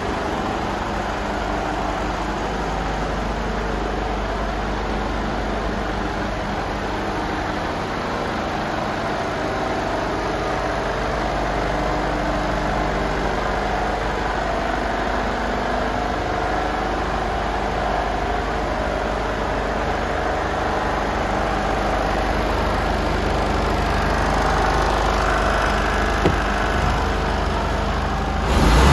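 Mercedes Actros 2545 tractor unit's six-cylinder diesel engine idling steadily. Near the end there is a louder clunk as the cab door is opened.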